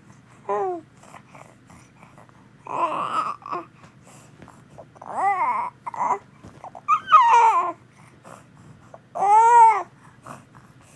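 Young infant babbling and fussing in about five short vocal sounds, each rising and then falling in pitch. The sounds come from a baby straining to roll over, in frustration at not managing it.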